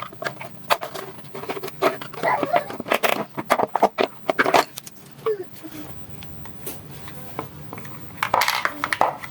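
Irregular sharp clicks and knocks of hard objects being handled, dense over the first half and again in a short cluster near the end.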